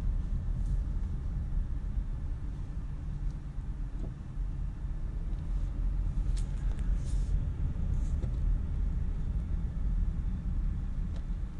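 Steady low rumble of road and engine noise inside a moving car's cabin, with a few faint high ticks about six to seven seconds in.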